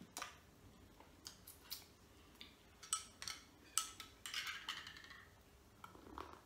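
Metal teaspoon clinking against the inside of a mug of cappuccino as it is stirred: a string of sharp clinks with a short scraping stretch about four seconds in, then a sip near the end.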